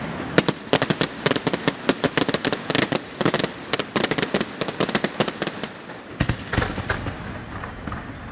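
Fireworks display: a rapid, dense barrage of sharp cracks and bangs, several a second, thinning out after about six seconds, when a few deeper booms follow and the noise fades.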